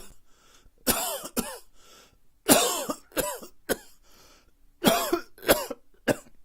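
A person coughing in three short fits: two coughs, then three, then three more.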